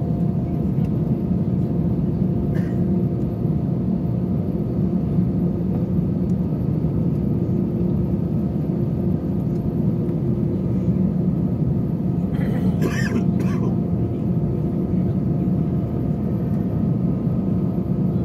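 Jet airliner cabin noise while taxiing: a steady low rumble with a faint steady hum. A brief high-pitched sound cuts in about thirteen seconds in.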